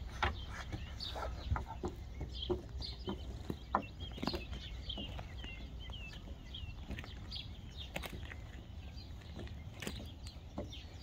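Birds chirping in quick runs of short, falling calls, over a low steady outdoor background, with scattered short clicks and knocks.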